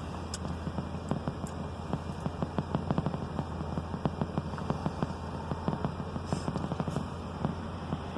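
Steady low hum of a stationary car, overlaid with frequent irregular clicks and crackles.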